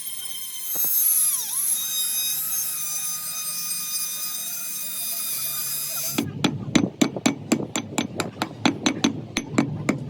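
A power tool whining at a high pitch, dipping briefly twice as it bites. About six seconds in it stops, and rapid hammer blows follow, about four a second.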